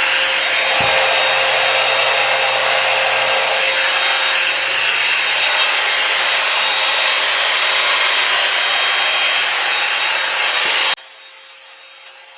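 Revlon One-Step hair dryer brush running on its low setting, a loud, steady rush of blown air and motor noise. It stops abruptly near the end.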